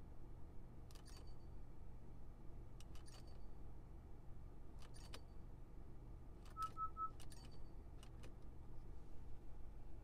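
Clicks of the 2020 Acura RDX's Dynamic Mode dial being turned through its drive modes, coming in pairs about every two seconds, with three quick beeps about two-thirds of the way through, over a low steady hum.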